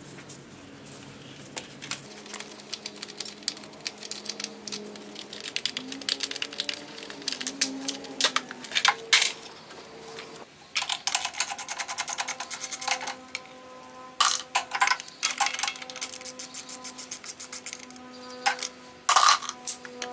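Nylon cable tie being pulled tight around a generator fuel line: several runs of rapid ratcheting clicks, the loudest run near the end, with scattered handling clicks between.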